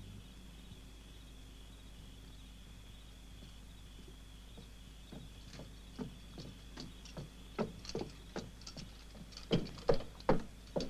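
Footsteps approaching, faint at first about halfway in and growing louder toward the end, over a faint steady high-pitched hum.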